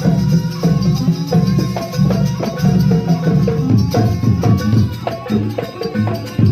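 Live jaranan music: a traditional East Javanese ensemble of drums, gongs and pitched percussion playing loud with a fast, steady beat.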